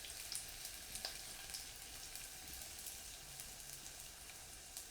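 Spring onions sizzling in hot avocado oil in a hot pot: a steady frying hiss with scattered sharp crackles and pops.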